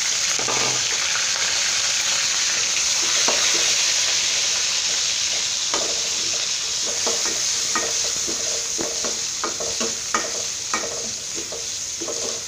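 Sliced onion with bay leaf and dried red chilli sizzling in hot oil in a karahi, frying for a dal tempering. A metal spoon stirs it, scraping and tapping against the pan in the second half.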